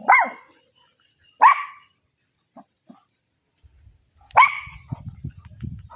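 A dog barking: three loud, sharp barks, the second about a second and a half after the first and the third about three seconds later, followed by low rumbling.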